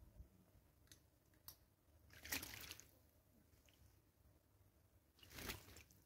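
Water splashing in a shallow tyre bird bath as a bird bathes in it: two short splashes, about two seconds in and about five seconds in.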